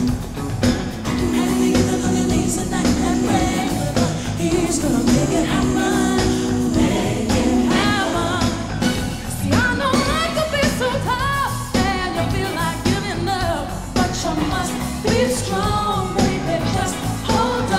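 Live pop-gospel song taken straight from the soundboard: a female lead singer with wavering vocal runs over sustained band chords and backing vocals.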